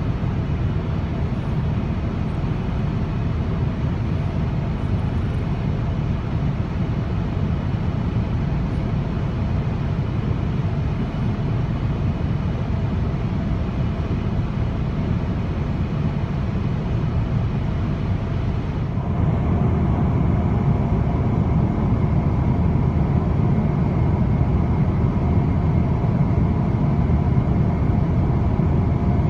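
Steady cabin noise inside a Boeing 777-200 in cruise flight: a constant rush of airflow and engine noise, heaviest in the low range. About two-thirds of the way through, it becomes slightly louder, with a faint steady tone added.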